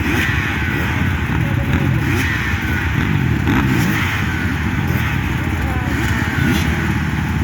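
Small engine running steadily, its pitch sliding up and down.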